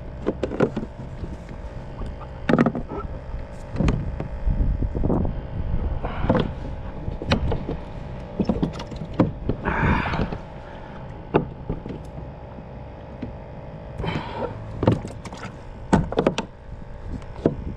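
Irregular knocks, clunks and rattles of gear and fittings on a plastic pedal-drive fishing kayak, with a short rushing noise about ten seconds in.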